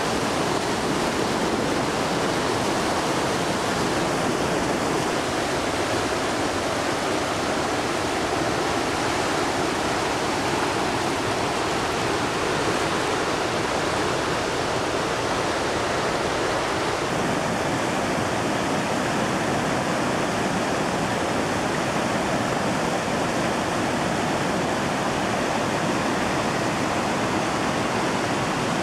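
River rapids in a rocky chute: whitewater rushing, a steady, unbroken sound of fast water.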